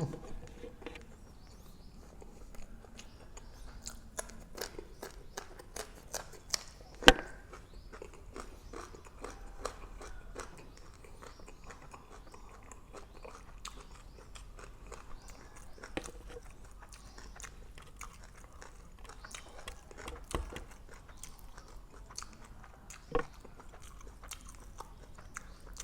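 A person chewing grilled pork neck salad (nam tok moo yang), with many scattered short clicks and a sharp knock about seven seconds in and another near the end.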